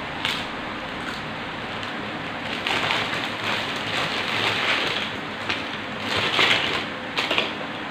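Clear plastic snack bag crinkling and rustling as hands open it and pull out crackers, in several bursts that come mostly in the second half.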